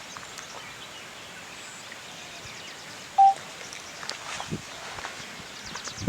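Faint outdoor background with a few soft rustles and knocks; about three seconds in, one short, steady beep-like tone stands out as the loudest sound.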